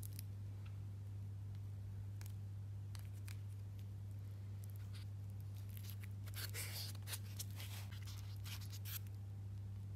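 Light clicks and short rustles of hands handling a stainless-steel wristwatch and its plastic cushion, busiest about six to nine seconds in, over a steady low hum.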